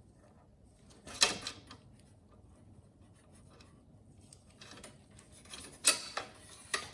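Handling noises from working on a lawn mower's control cable. A short hiss or rasp comes about a second in, then quieter rustling and a sharp tick near the end.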